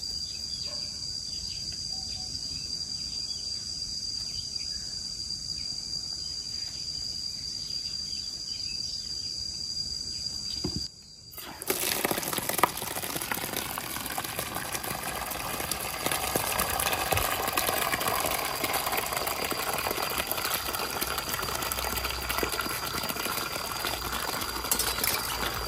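Steady high insect buzzing for the first half. About eleven seconds in, water from a garden tap starts pouring into a plastic basin, splashing steadily to the end.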